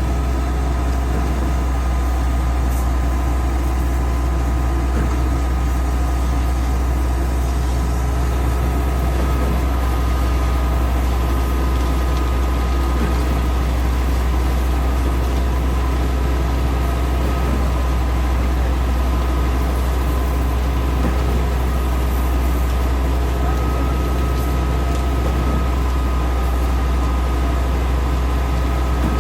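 Mobile concrete pump truck's diesel engine running steadily, a deep, even drone.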